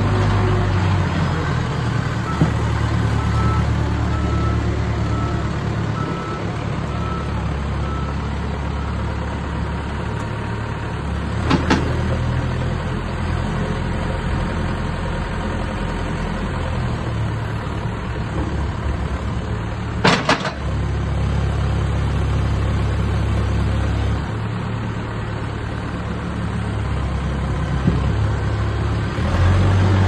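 Terex TLB890PS backhoe loader's diesel engine running as the machine manoeuvres and works its front loader arm, the engine note shifting several times. A string of short, evenly spaced beeps sounds from about two to eight seconds in, and there are two sharp knocks, about twelve and twenty seconds in.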